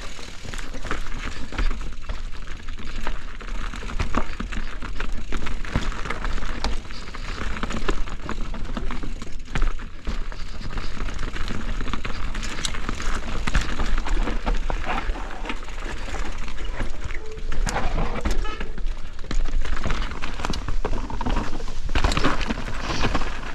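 Mountain bike riding down a dirt trail: steady wind rumble on the microphone, tyre crunch over the ground, and frequent rattles and clicks from the bike.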